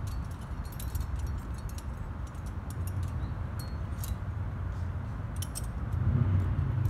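Metal trad climbing gear (cams and carabiners racked on a harness) clinking in short, scattered clicks as it is handled, over a steady low rumble that grows louder near the end.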